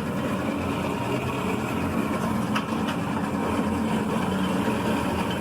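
Vehicle engine idling steadily, with two light clicks about two and a half seconds in.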